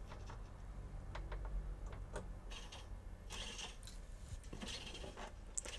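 Hobby servo gears whirring faintly in a few short spells as the 3D-printed droid head box is driven through its tilt, with a few light clicks.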